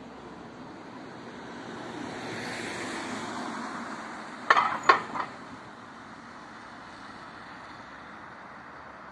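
A car driving over a level crossing: its tyre and engine noise swells and fades, with three sharp clunks about four and a half to five seconds in as its wheels go over the rails.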